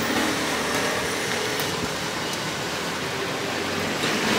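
Steady street-stall background noise, an even hiss like traffic, with a few faint clicks.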